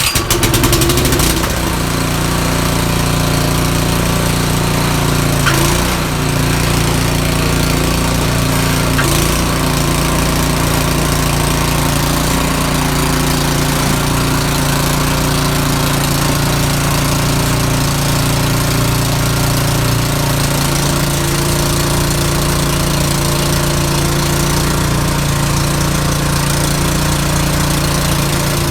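Small engine starting up abruptly and then running steadily at a constant speed.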